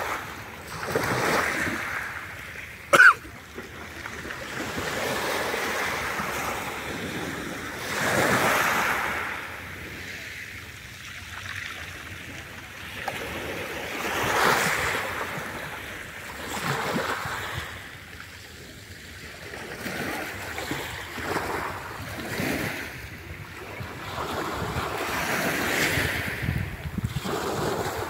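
Small sea waves washing onto the beach, swelling and fading every few seconds, with some wind on the microphone. One sharp click about three seconds in.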